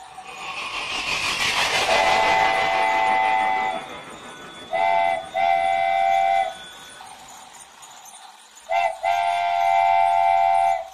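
Multi-tone train horn: a long blast over a swelling rush of noise in the first few seconds, then two pairs of blasts, each a short toot followed by a longer one.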